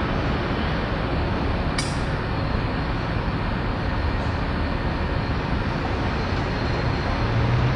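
Steady rumble of a busy railway yard and its surroundings, with a brief sharp click about two seconds in.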